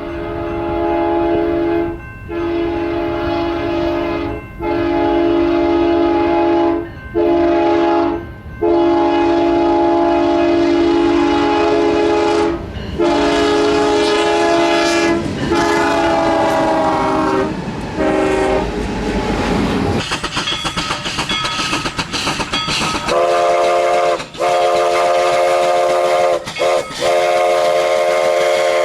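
Diesel locomotive's multi-chime air horn sounded in a series of long and short blasts, its chord sliding down in pitch as the locomotive passes. The horn gives way to the rumble and clatter of the train going by, then a horn chord sounds again in repeated blasts near the end.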